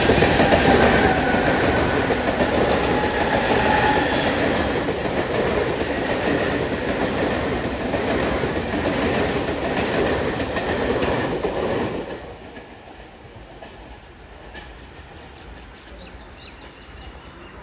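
Mumbai local electric train running past, its wheels clattering over the rail joints; the noise drops away suddenly about twelve seconds in, leaving a much quieter background.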